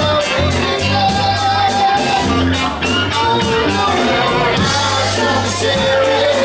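Live cover band playing amplified rock: electric guitars, bass guitar, drums and a lead singer. A steady cymbal beat ticks about four times a second over sustained bass notes.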